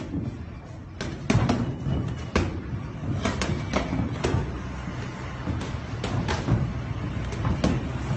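Boxing gloves smacking against gloves and headgear during sparring: a dozen or so sharp thuds coming irregularly, some in quick pairs, over a low steady background hum.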